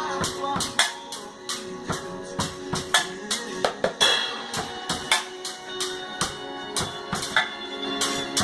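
Instrumental music with drums playing a steady beat of kick, snare and cymbal hits over sustained band chords, with no singing.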